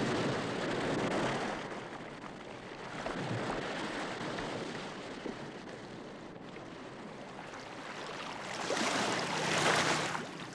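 Choppy sea water washing and splashing as a North Atlantic right whale calf rolls at the surface beside a small boat. A louder rush of water swells up near the end.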